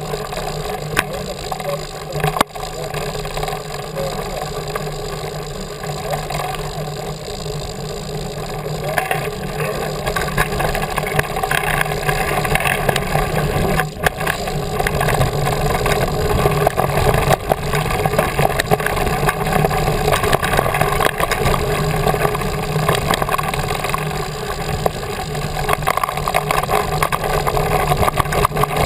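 Ride noise picked up by a handlebar-mounted camera on a mountain bike rolling down a gravel fire road: tyres crunching on gravel and a steady stream of rattles and knocks as the bike, without good suspension, jolts over the rough surface, over a low rumble of wind on the microphone.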